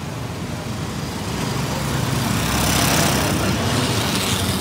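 A motorcycle tricycle (motorbike with sidecar) passing close by on the street, its small engine growing louder to a peak about three seconds in, over general street traffic.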